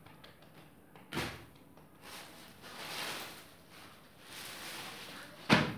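Plastic wrapping on packed sarees rustles and crinkles in two spells. There is a short knock about a second in and a louder, sharp knock near the end.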